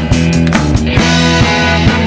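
Instrumental rock music: electric guitar and bass over a steady drum beat, about four hits a second.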